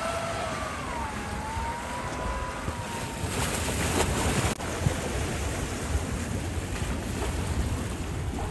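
A 10 kW electric outboard motor whines as the boat gets under way, its pitch rising, dipping and then holding steady. About three seconds in, this gives way to wind buffeting the microphone and waves.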